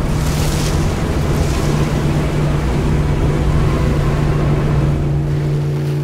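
Waves and splashing in the shallows of a lakeshore as a man thrashes about in the water, with wind rumbling on the microphone and a motorboat engine droning steadily across the lake. The wind rumble drops away near the end.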